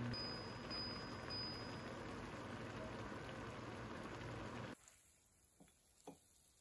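Thick red sauce of a webfoot-octopus stir-fry bubbling and spitting in a pan on a gas burner, a dense crackle that cuts off suddenly near the end; then a couple of faint taps.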